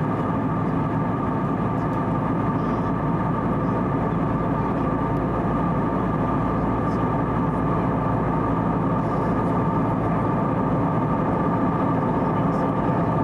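Steady rush of airflow and engine noise inside the cabin of an Airbus A320-251N with CFM LEAP-1A engines in flight, with a faint steady hum.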